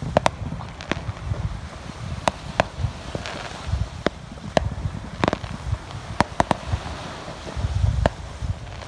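Fireworks going off: about fifteen irregular sharp pops and cracks, the loudest a little past halfway, over a low rumble.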